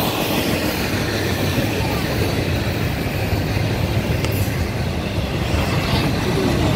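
Double-stack intermodal container well cars of a freight train rolling past: a steady low rumble of steel wheels on rail, with one sharp click about four seconds in.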